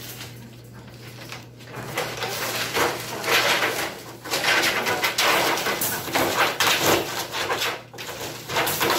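A feral dog struggling inside a wire dog crate as a leash is put on her: loud, irregular bursts of rattling and scrabbling that start about two seconds in.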